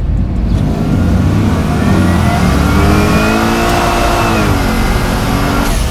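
Twin-turbocharged LS V8 of a 1970 Chevelle SS under hard acceleration, heard from inside the cabin. The engine note climbs for about four seconds with a thin whistle rising above it as the turbos spool, then the pitch drops near the end.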